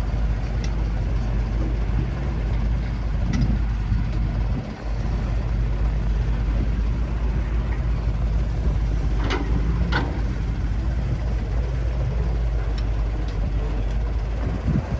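Heavy earthmoving machinery's diesel engine running steadily under load, with two short, sharp metallic sounds a little over halfway through.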